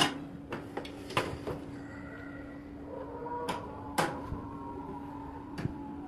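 Sharp clicks and knocks of hands working parts inside an opened microwave oven's metal chassis while fitting the high-voltage capacitor and diode. There is a cluster of clicks in the first second and a half, and a few more near the middle and near the end, over a steady low hum.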